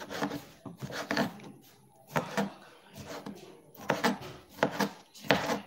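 A kitchen knife dicing a tomato on a cutting board: irregular knocks of the blade through the flesh onto the board, roughly two a second.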